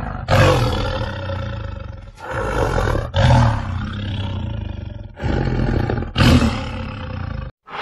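Big cat roaring, about five long, loud roars one after another, cutting off abruptly near the end.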